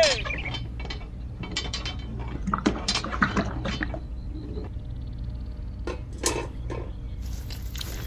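Miniature concrete mixer being tipped by turning its handwheel: a run of small clicks and knocks from the tilting mechanism, with a few more knocks later on.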